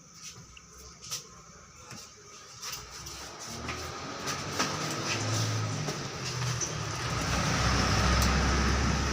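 A power amplifier being switched on through a series bulb: a few handling clicks, then a low hum and a rush of noise that build steadily louder over several seconds.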